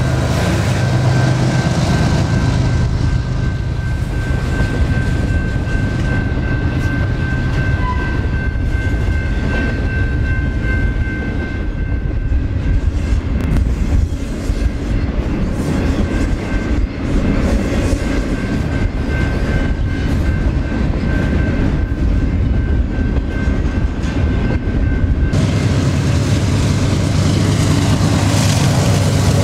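Diesel-hauled double-stack freight train rolling past close at speed: a steady heavy rumble and clatter of wheels on rail, with a faint thin steady tone through most of it. Near the end it changes abruptly to the deep engine drone of BNSF diesel locomotives passing.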